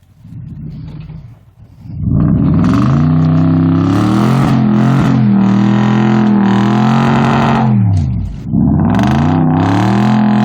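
Chainsaw engine idling, then revving up to full throttle about two seconds in and held high, dropping back briefly near eight seconds before revving up again.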